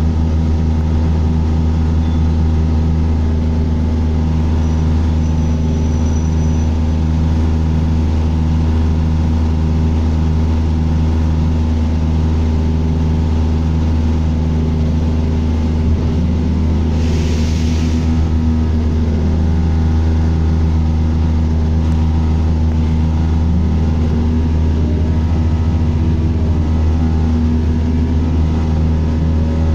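Bus engine and drivetrain running under way, heard inside the bus, with a weird low tone pulsing on and off about one and a half times a second for several seconds. A brief hiss comes about halfway through.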